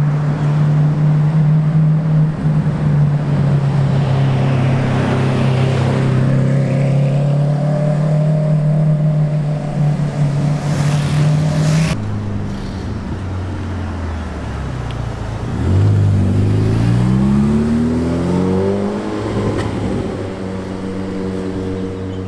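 Lamborghini Aventador V12 engine running at a steady low note as the car approaches, ending abruptly about twelve seconds in. Then another supercar engine accelerating, its note rising for a few seconds.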